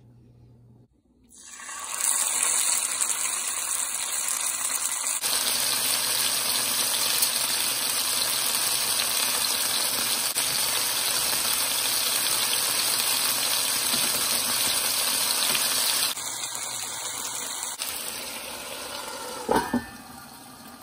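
Marinated chicken pieces sizzling loudly in hot oil in a frying pan, in several stretches that start and stop abruptly. Near the end a short metallic knock with a brief ring as a lid is set on the pan.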